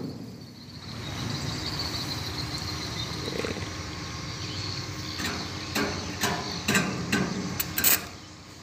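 Stick (arc) welding on the steel plate of a dump-truck bed: a steady crackling hiss for the first few seconds. Then come a series of sharp knocks about two a second, from hammering the plate tight or striking the arc for tack welds.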